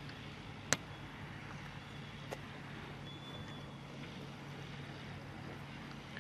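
Antonov An-2's nine-cylinder radial engine running steadily at low power as the biplane rolls on grass, a low even hum. A sharp click sounds under a second in, with a fainter one a little after two seconds.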